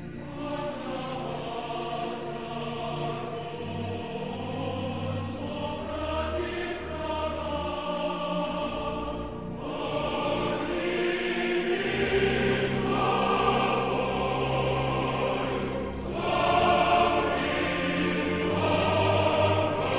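Choral music: a choir singing slow, long-held chords, with a short break about halfway through, and growing louder toward the end.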